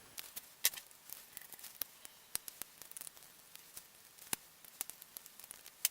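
Faint, irregular clicks and taps of a plastic keyboard cellphone (an LG Rumor) being handled as it is taken apart, with a few sharper clicks.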